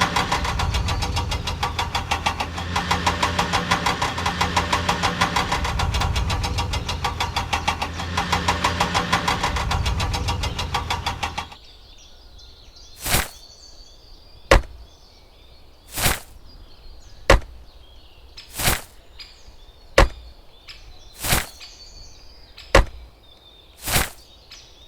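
An engine running with a fast, even chug, like a tractor's diesel, that cuts off about eleven seconds in. Then sharp single knocks follow at a steady pace, about one every second and a third, over a faint background.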